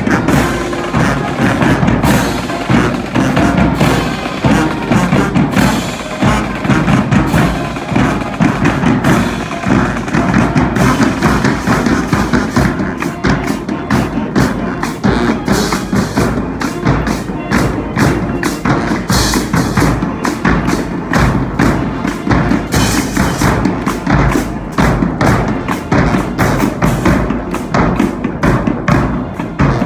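Marching band playing on the march: saxophones and brass over a drumline of snare, tenor and bass drums keeping a steady beat.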